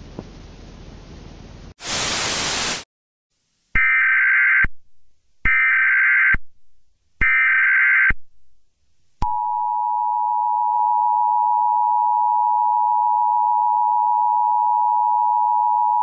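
A one-second burst of static, then the Emergency Alert System's SAME header: three separate one-second bursts of chirping data tones. Then the EAS two-tone attention signal starts and sounds steadily, a harsh, unchanging pair of close tones.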